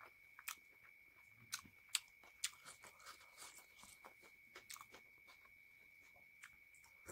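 Close-miked chewing of a mouthful of rice mixed with egg, with a run of sharp wet clicks and smacks between about half a second and five seconds in, the loudest around two seconds in. A faint steady high whine runs underneath.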